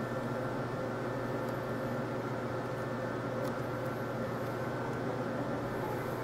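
Steady background hum and hiss with a constant low drone and a few faint steady tones, no distinct event.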